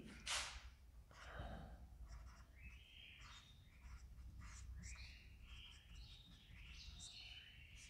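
Marker pen squeaking faintly on a whiteboard in a string of short written strokes, with a short hiss just after the start.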